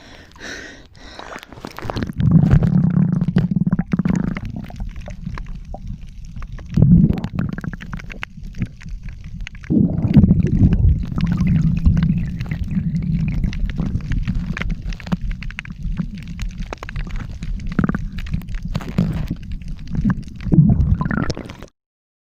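Muffled low rumbling and gurgling of water heard underwater, swelling and easing in surges, with scattered clicks. It cuts off abruptly near the end.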